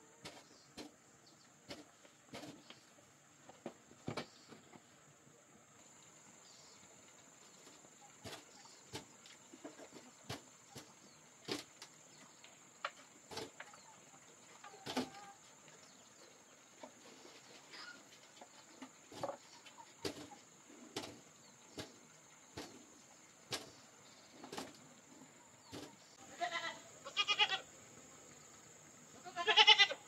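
Goat bleating, two wavering calls near the end, the second the loudest. Scattered short knocks and clicks run through the rest.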